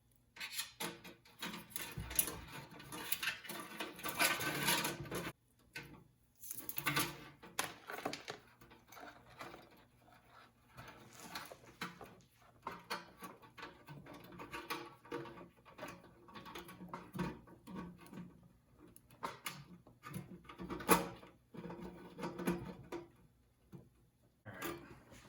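Hands handling parts and wiring at a workbench: irregular rustling and scraping with scattered clicks and knocks, one sharp knock about three quarters of the way through.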